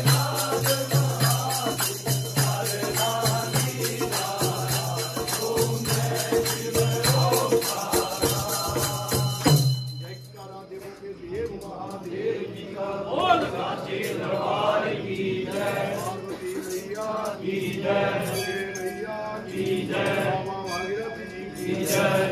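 Group of worshippers singing a Hindu aarti over fast, even percussion from a chimta's jingles and a hand drum, with a steady low hum. About ten seconds in, the percussion stops suddenly and the voices carry on chanting alone.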